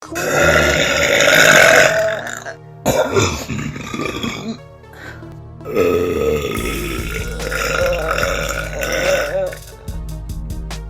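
A girl burping: three long, drawn-out burps, the last and longest running from about six seconds to nine and a half, over background music.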